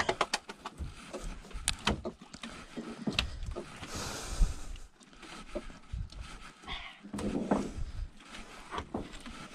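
Irregular knocks, rubs and brushing of a nylon hand line being hauled in hand over hand over the side of a wooden boat, with a brief hiss a little after four seconds in.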